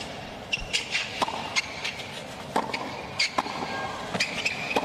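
Tennis rally on a hard court: sharp racket strikes and ball bounces about every second, with brief high squeaks of the players' shoes.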